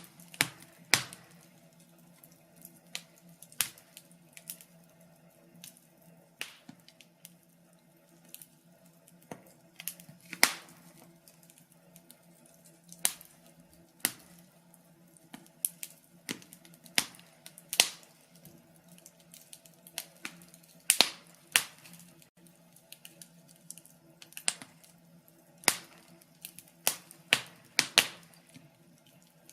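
Wood fire in a fireplace crackling: irregular sharp pops and snaps, about one or two a second and of varying loudness, over a faint steady hum.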